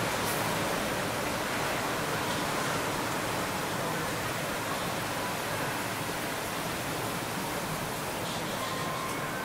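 Steady outdoor background noise, an even hiss with no distinct events, and a faint short tone near the end.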